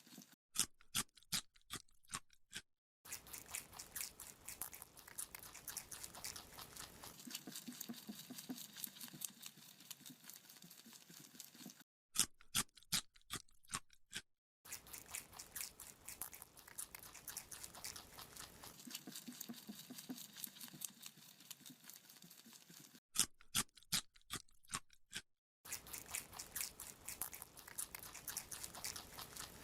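Rabbit chewing a carrot: a handful of sharp crunching bites, then several seconds of fast, steady chewing. The same pattern comes round three times, about every eleven seconds.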